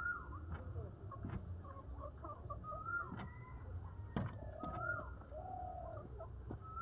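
Domestic pigeons cooing, with short high calls that rise and fall every second or two, and a few sharp knocks.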